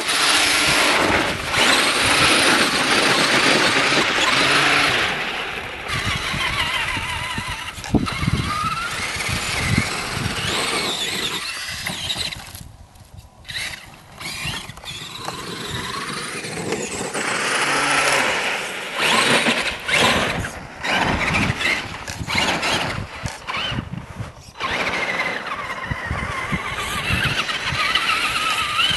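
Traxxas Summit RC truck's electric motor and drivetrain whining, the pitch rising and falling with the throttle as it drives over snow and ice. The whine drops away for a moment about halfway, and there are a few sharp knocks later on.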